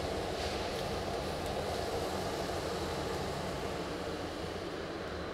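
Steak sizzling on a hot grill just after being basted with a butter mixture: a steady, even hiss with a low rumble beneath it.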